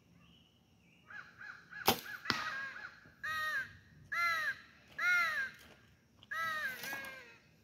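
A compound bow is released about two seconds in with a sharp crack, and the arrow hits the target a split second later with a second smack. A bird caws repeatedly over it, then four loud calls about a second apart.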